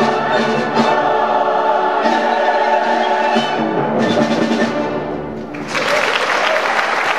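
Mixed choir and symphony orchestra sounding the closing chords of the piece. The music stops about five and a half seconds in and audience applause breaks out.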